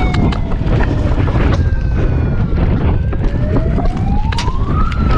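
Wind buffeting the camera microphone, with scattered sharp clicks of airsoft gunfire. A siren tone sounds behind it, slowly falling in pitch, then rising to a peak near the end and starting to fall again.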